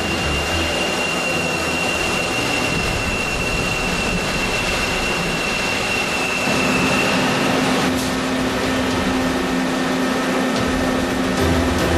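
Vertical turning lathe cutting a large metal ring: a steady hiss of machining with a thin high whine that stops about eight seconds in, while a low steady hum sets in shortly before.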